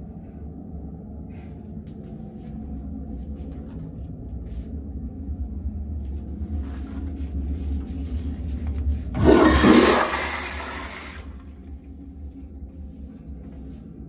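Wall-hung Toto toilet with a flushometer valve flushing: a loud rush of water starts about nine seconds in, lasts about two seconds and dies away. Under it runs a low steady rumble.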